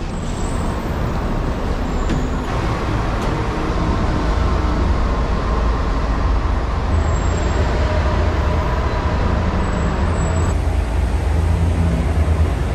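Steady low rumble of vehicle engines and road traffic, growing louder about four seconds in.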